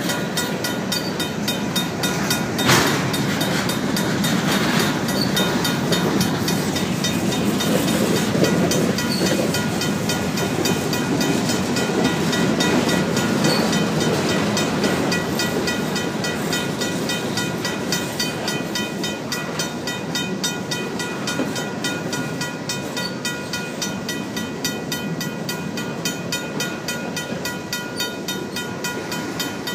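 Empty covered grain hopper cars of a Union Pacific freight train rolling past close by: a steady rumble of wheels on rail with clacking, and one sharp clank about three seconds in. A mechanical crossing bell rings steadily behind it.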